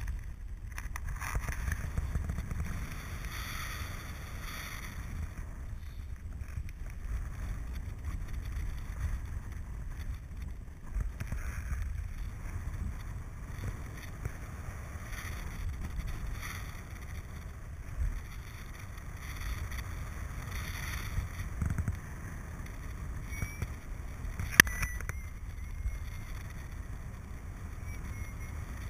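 Wind buffeting the microphone in paraglider flight: a steady low rumble that swells and eases with the airflow. A single sharp click comes late on.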